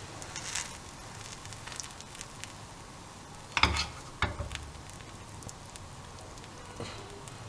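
Buttered bread slices faintly sizzling in a pan on the stove, while creamy corn filling is spooned onto them with a spatula, giving a few sharp knocks and scrapes; the loudest come about three and a half and four seconds in.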